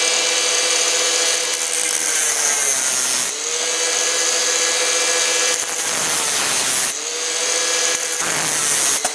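Cordless angle grinder with a thin cut-off disc cutting through the metal shaft of a hand-cranked meat mincer: a steady motor whine over harsh grinding. The motor drops off and spins back up about three seconds in and again about seven seconds in, as the disc is lifted and set back into the cut.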